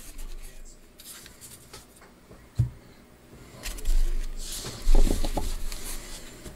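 A stack of baseball trading cards being handled on a tabletop: a single thump about two and a half seconds in, then the cards rustling, sliding and knocking as they are gathered and squared into one pile.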